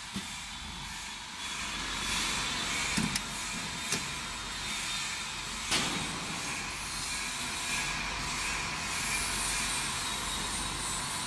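Automatic mango peeling machine running with a steady mechanical hiss, and a few sharp clicks about three, four and six seconds in.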